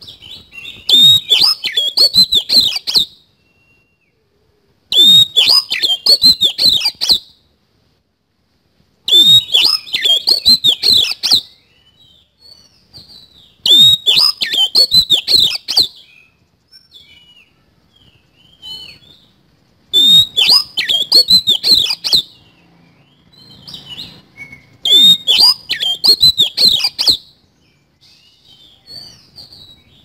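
Oriental magpie-robin (kacer) singing in loud bursts of about two seconds, six times, each a rapid run of harsh repeated notes, with soft short calls in the gaps between.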